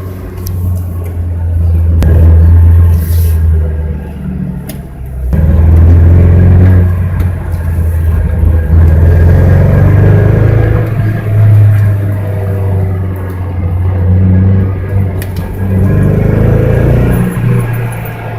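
1999 Mazda Miata's four-cylinder engine running with a strong low hum that rises and falls. It drops off briefly about four to five seconds in, then comes back suddenly. This engine misfires on cylinder 2 above a quarter throttle, a fault traced to a bad ignition coil pack.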